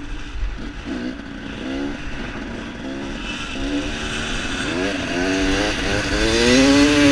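KTM dirt bike engine accelerating, its pitch climbing and dropping back several times as it shifts up through the gears, growing louder toward the end.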